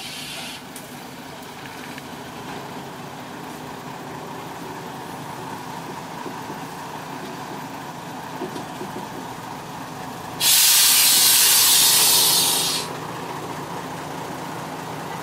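Diesel railbus engine running steadily as the railcar creeps up to another vehicle. About ten seconds in, a loud hiss of escaping compressed air lasts two to three seconds and then stops.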